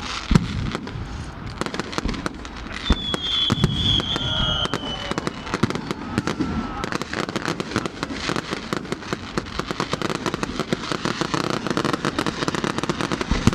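Fireworks going off in a dense stream of crackling pops and bangs, with a high whistle for a second or two about three seconds in.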